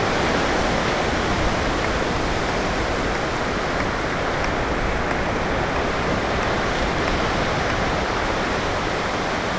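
Ocean surf washing steadily on the beach, a continuous rushing hiss with no single wave break standing out.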